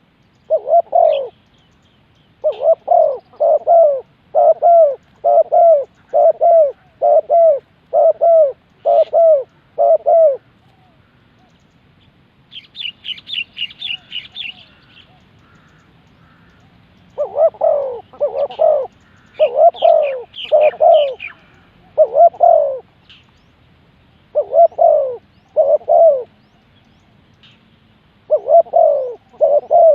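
Spotted dove cooing: a long run of even, low coos in the first ten seconds, then after a pause more coos in shorter groups. A short burst of quick, high chirps from a smaller bird comes in the pause.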